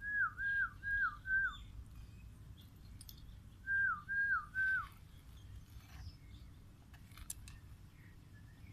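A run of four quick, clear whistled notes, each held and then dropping in pitch. After a pause of about two seconds, three more notes follow in the same pattern.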